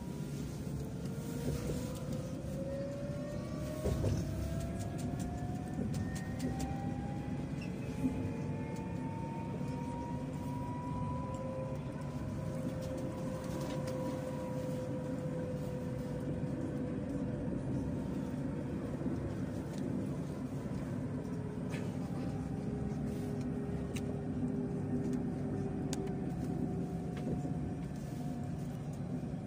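Tram's electric traction drive whining as it pulls away, the whine rising in pitch over about ten seconds, then easing and falling slowly as the tram coasts and slows, over a steady low rumble of wheels on rails, heard from inside the car.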